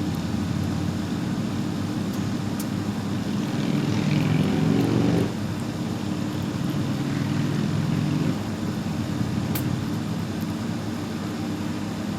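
Steady low hum of a vehicle engine. About four seconds in it rises in pitch for a second or so, then cuts back suddenly, and a little later another louder stretch stops abruptly.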